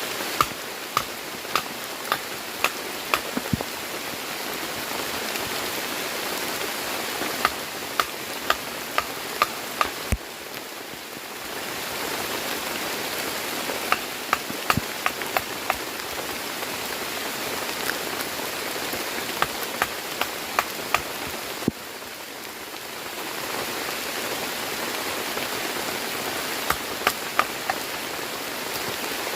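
Heavy rain falling steadily, with many separate louder drops tapping close by. The rain briefly goes quieter twice before building again.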